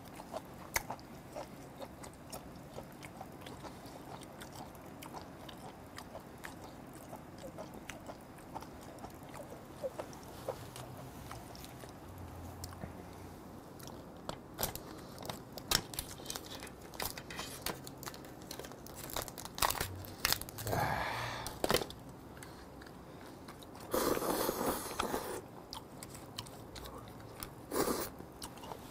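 Close-up eating sounds of steamed swimming crab: chewing, biting and crunching on shell, with scattered sharp clicks. The sounds grow louder in the second half, with a few longer noisy stretches.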